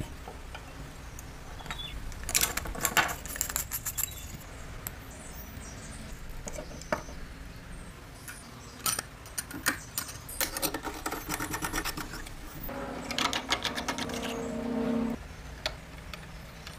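Small metal parts of an antique telephone handset clicking, tapping and scraping under hand tools, in several bursts of rapid clicks. A short low hum comes in under the last burst, a little before the end.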